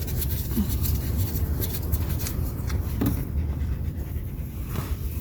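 Rapid panting breaths close to the microphone over a steady low rumble.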